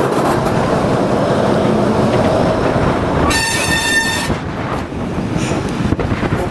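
Train running slowly, a steady rumble of wheels and engine, with one short horn toot lasting about a second about halfway through.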